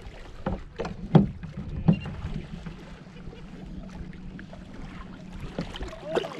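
Knocks and thumps of a fishing rod and reel being handled on a plastic fishing kayak while a hooked fish is fought. There are three sharp knocks in the first two seconds, the loudest about a second in, over a steady low hum.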